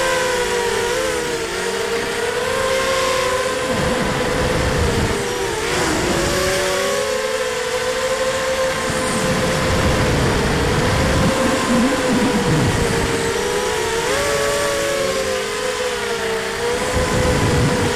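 ZMR250 racing quadcopter's four 2300 kV brushless motors with 5-inch props whining, several close pitches wavering up and down as the throttle changes through the flight. Low wind buffeting on the onboard camera's microphone comes and goes in gusts.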